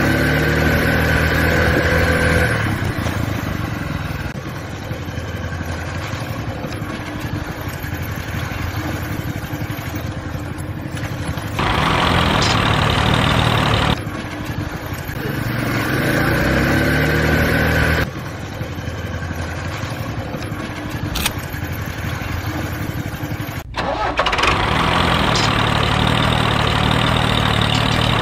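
Vehicle engine running, its sound changing abruptly every few seconds between a quieter stretch and louder stretches with more hiss.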